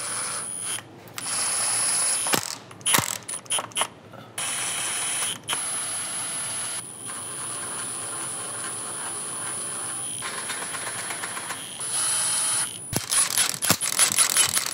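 Impact gun on its lowest setting, run in several bursts with a thin high whine, spinning transmission pan bolts in until the heads just touch the pan. Near the end comes a quick run of ratchet clicking as a pan bolt is turned by hand.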